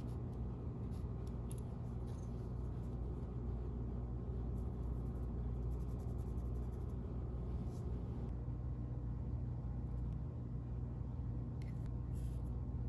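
Faint scratching of a permanent marker drawing on a mahogany block, a few short strokes, over a steady low background hum.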